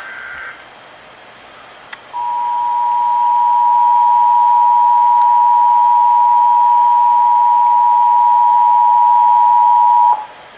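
Emergency Alert System broadcast: the last short burst of the digital SAME header data, then, about two seconds in, the EAS two-tone attention signal, two steady pitches sounding together for about eight seconds and cutting off abruptly. It marks the start of a Required Monthly Test alert.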